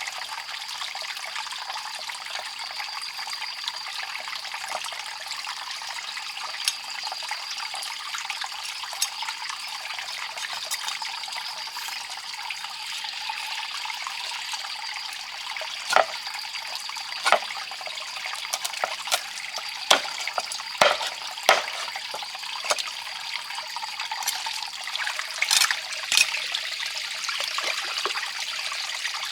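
Water running and trickling steadily, with a constant high-pitched tone over it. A series of sharp clicks and taps sounds over the second half.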